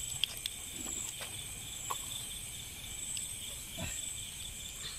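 Crickets chirping, a steady high trill, with a few faint clicks.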